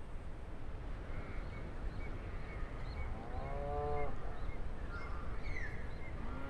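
A cow lowing once, about three seconds in, a pitched call that drops away at its end. Birds chirp in short repeated notes, over a low outdoor rumble.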